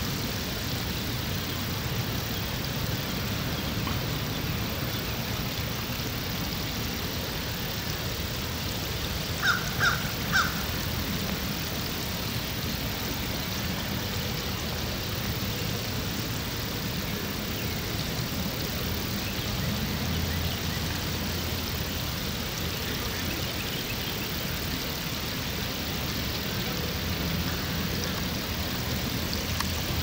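Steady rush of water flowing over a low rock ledge, with a bird calling three times in quick succession about ten seconds in.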